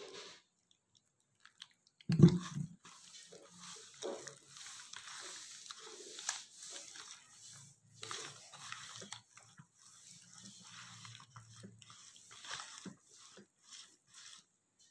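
Wet squelching and squishing of a hand kneading thick batter of cornflour, rice flour, spice powders and a little water in a bowl. A single thump about two seconds in is the loudest sound.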